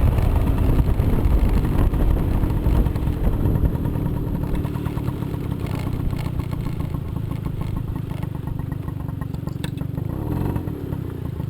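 Moped scooter's small engine running on the move along a dirt trail, loud for the first few seconds, then easing off to a lower, steadier run.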